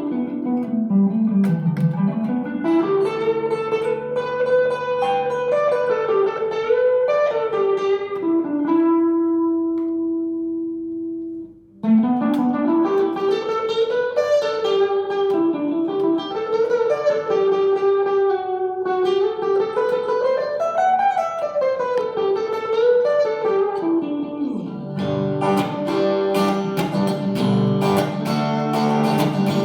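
Fender HSS Telecaster electric guitar played clean through a Vox AC30 amp with little gain: melodic single-note lines, one note held and left to fade about ten seconds in, then fuller strummed chords near the end.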